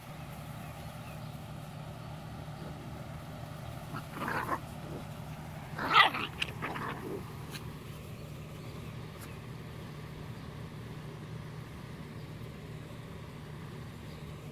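Dog barking in play: a short burst of barks about four seconds in, then a louder cluster around six seconds, over a steady low hum.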